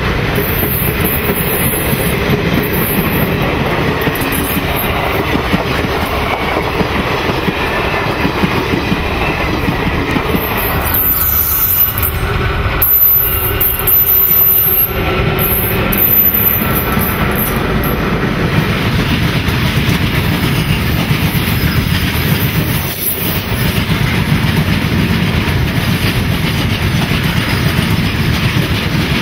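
Freight train wagons rolling past at close range: a steady rumble with the clickety-clack of wheels over rail joints, and a thin high wheel squeal now and then.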